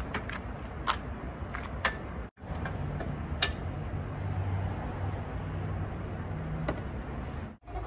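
Scattered metallic clicks and clinks of a hand tool working a bolt on the battery bracket, over a steady low vehicle hum. The sound cuts out briefly twice.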